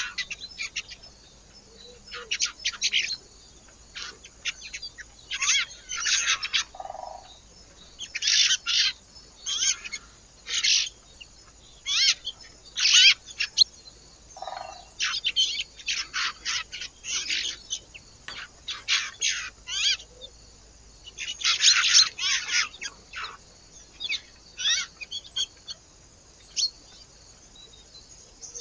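Small birds chirping in short, repeated bouts of quick, high calls with brief pauses between them.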